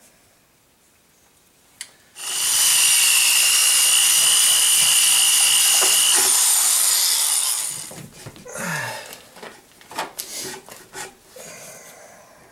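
Handheld power drill running steadily with a high whine for about five and a half seconds, then stopping. Scattered knocks and rattles of the tool being handled follow.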